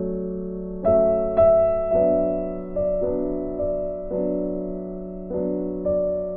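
Background music: soft piano or electric-piano chords with slow sustained notes.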